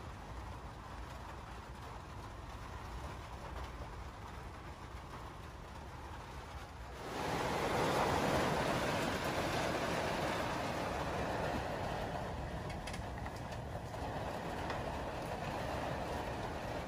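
Rushing wind and rain of a strong summer storm, a steady noise that is muffled at first behind the window glass. About seven seconds in it turns suddenly much louder and fuller once out in the open air.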